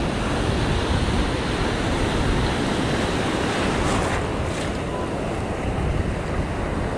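Ocean surf breaking and foamy water washing through the shallows, a steady rushing, with wind buffeting the microphone.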